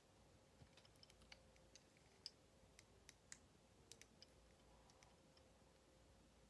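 Faint, irregular clicks of a plastic Transformers Megatron action figure's joints and parts being twisted and snapped into place during transformation, the sharpest about two seconds in.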